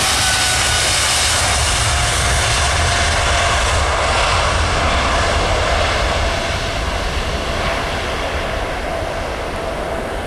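Boeing 777 turbofan engines running loud: a dense roar with a whine that drifts slowly lower, fading gradually over the last few seconds.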